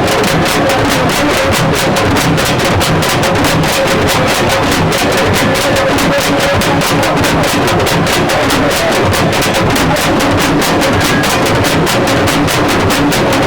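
Music with a fast, steady percussive beat, several strokes a second, playing without a break.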